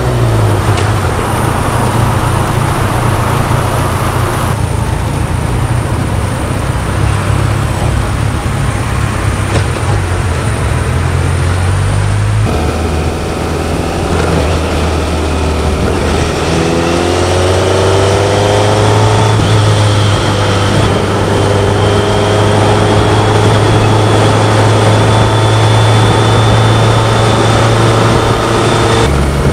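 BMW K1100LT's inline four-cylinder engine running; the sound changes abruptly about twelve seconds in, and a few seconds later the pitch rises for a couple of seconds.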